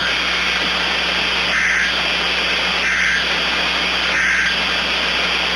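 Three short EAS end-of-message data bursts, each about half a second long and spaced a little over a second apart, heard through a steady hiss of static with a low hum underneath.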